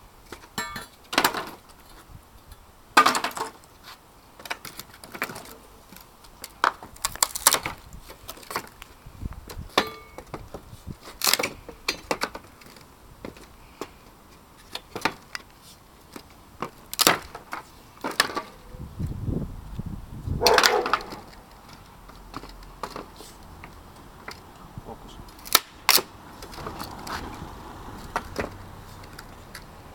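Nailed wooden pallet boards being pried apart with a steel pallet-breaker lever: a string of sharp knocks and wood cracks, with a longer, heavier cracking pull about two-thirds of the way through as a board tears free of its nails.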